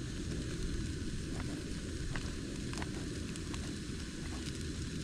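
Onions sizzling in a frying pan over a portable gas camp burner: a steady hiss over a low rumble, with scattered sharp ticks throughout.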